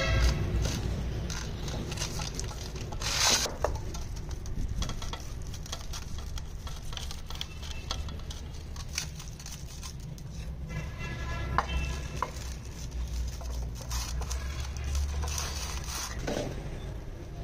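Hands rubbing and pressing a wet spice marinade into a raw leg of lamb in a steel tray: soft squelching and rubbing, with scattered light clicks and taps against the metal.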